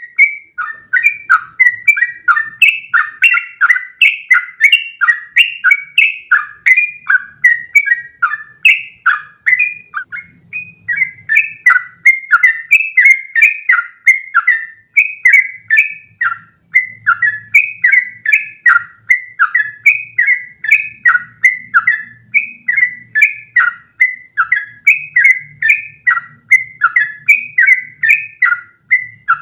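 Yellow-vented bulbul (trucukan) singing a long unbroken run of quick, sliding chirped notes, about three a second, with no pauses: the rapid continuous song bird-keepers call ropel.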